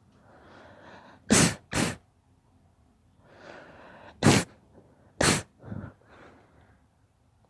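A girl sneezing in two bouts. Each starts with a drawn-in breath; the first ends in two sharp sneezes in quick succession, the second in two more sneezes about a second apart, followed by a smaller one.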